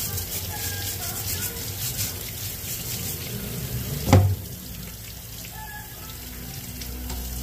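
Water running from a kitchen tap into a sink, with one sharp knock about four seconds in. The running is a little quieter after the knock.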